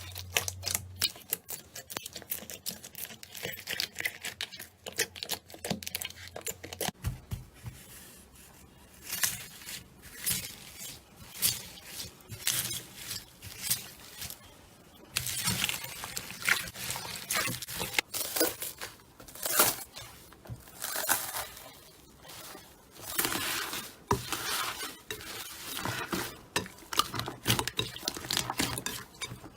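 Slime being squeezed and pulled by hand, giving a run of irregular sticky clicks, crackles and pops.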